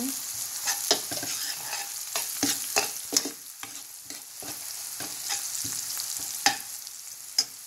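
Vegetable bhaji frying in a pan with a steady sizzle, stirred with a utensil that scrapes and knocks against the pan in irregular clicks.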